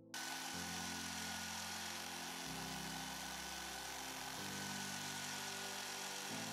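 Small bench drill press running, its bit drilling a small hole through a metal plate: a steady hiss with a faint whine, starting suddenly just after the start.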